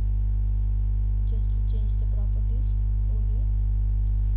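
Steady electrical mains hum, a low buzz with its overtones, carried on the recording. A faint murmuring voice sits under it in the middle.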